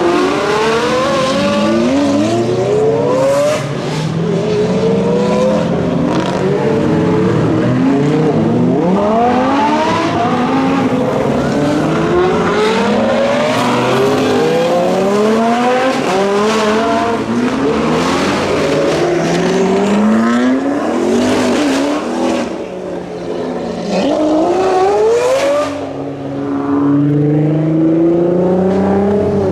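Supercar engines accelerating hard as the cars pull away, one after another: loud, repeated rising engine notes that climb through the revs, drop back at each upshift and climb again, often several cars overlapping.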